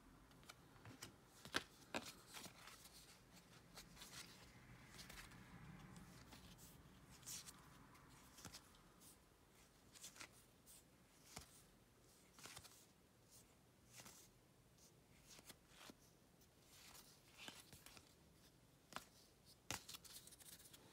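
Faint handling of a stack of trading cards: card stock slides and flicks as the cards are thumbed through one by one, giving irregular soft clicks.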